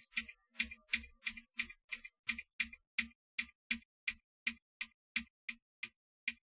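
Computer keyboard keys being typed on in a steady rhythm, about three clicks a second, each with a light low thud as the key bottoms out. The clicking is the keyboard noise coming through the microphone while a noise gate's threshold is raised to shut it out.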